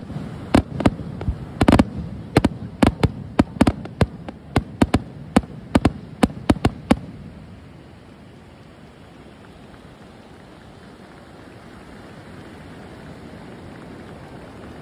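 Fireworks going off in a rapid, irregular string of sharp bangs and crackles for about seven seconds, then stopping. A steady rush of surf is left.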